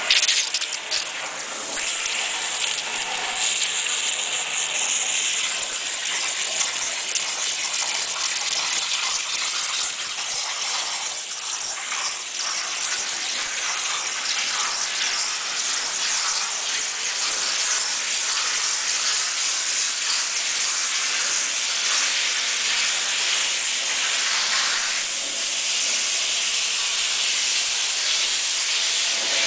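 High-pressure water jet of a CNC waterjet cutting machine, hissing steadily.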